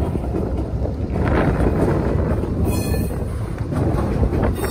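Double-stack intermodal freight train rolling past, a steady rumble of steel wheels on rail with wind buffeting the microphone, and a brief high squeal about three seconds in.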